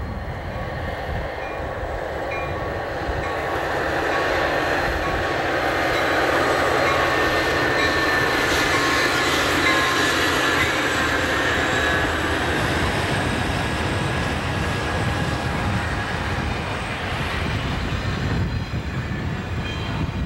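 Amtrak F40PH diesel locomotives and their passenger cars passing close by. The rumble and rail noise build over the first few seconds, are loudest while the locomotives go past, and a few steady high-pitched tones ring over the noise. The sound eases slightly as the cars roll by.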